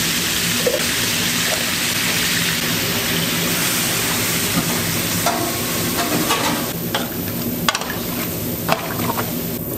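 Food frying and sizzling in a hot pan over a steady low hum. About halfway through, the sizzle thins and a series of sharp clicks and knocks follows, like utensils working the pan.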